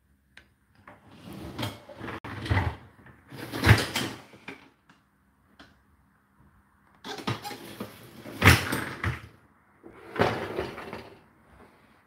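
Dishwasher rack being slid on its rails with the dishes in it rattling, in three bursts with knocks, after the wash cycle has finished.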